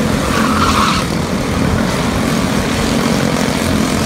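Several quarter midget race cars' small single-cylinder Honda engines running together at racing speed: a loud, steady drone.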